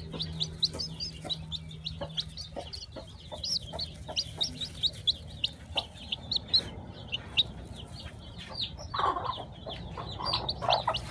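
Chicken chick peeping rapidly, short high peeps several a second, with a lower, noisier sound about nine seconds in.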